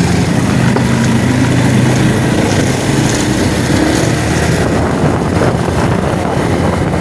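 A vehicle engine running steadily, with road and wind noise.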